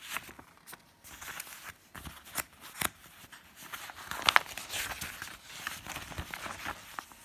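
Glossy paper leaflet rustling and crinkling as it is handled and its pages are opened and turned, with sharp crackles of the paper, loudest a little past the middle.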